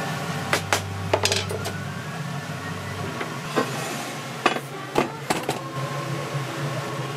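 Wooden spatula knocking and scraping against a frying pan while stir-frying shrimp and broccoli, with a scatter of sharp clacks about a second in and again around four to five seconds in, over a steady background hum.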